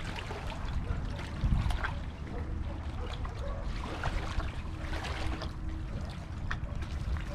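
Small waves lapping and splashing against a wooden jetty and its tyre fenders, in many short irregular splashes, with wind rumbling on the microphone.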